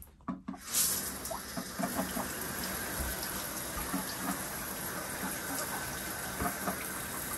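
Water from a shower head running steadily into a shallow pool of water in a walk-in shower stall, starting abruptly about half a second in.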